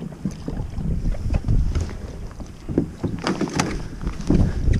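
Boat motor running in reverse at low speed, a steady low rumble that comes up at the start and grows louder, with a few short sharp knocks or splashes about three seconds in.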